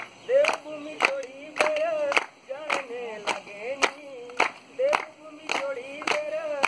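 A man sings a Kumaoni pahadi folk song without instruments, his sung line bending and holding. The audience claps along in a steady beat of nearly two claps a second.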